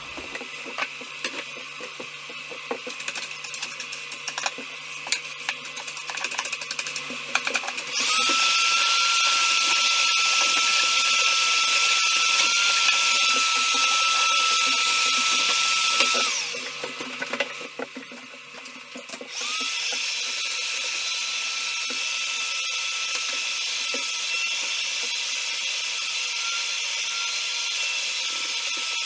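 Scattered light knocks and clicks, then a power tool starts about eight seconds in and runs steadily with a high whine for about eight seconds. It stops, and about three seconds later it starts again and keeps running.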